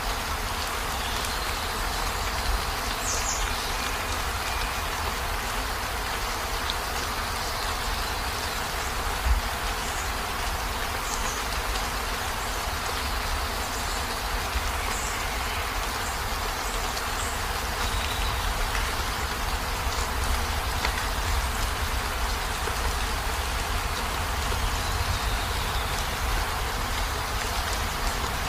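Steady heavy rain falling on a camper van's roof and windows, heard from inside, over a low rumble. A single dull knock stands out about nine seconds in.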